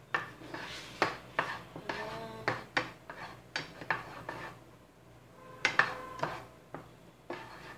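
Spatula scraping and knocking against a nonstick frying pan while butter is spread around it: a string of sharp knocks, some with a brief ring from the pan, thickest in the first four seconds and again around six seconds in.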